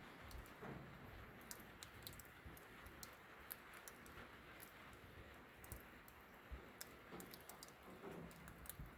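Rain on a metal barn roof: faint, irregular sharp ticks of single drops hitting the metal over a soft steady hiss.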